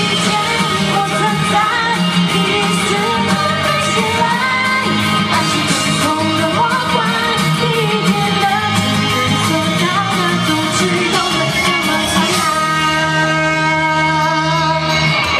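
A woman singing pop into a microphone over loud amplified band accompaniment with guitar and a steady bass line; near the end the accompaniment settles into a held chord.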